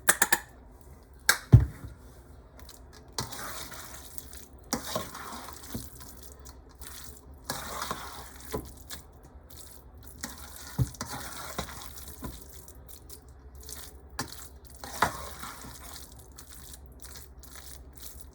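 Potato salad being stirred with a spoon in a bowl: wet, squelching strokes every second or two. There are a few sharp knocks of the spoon in the first two seconds, the loudest about a second and a half in.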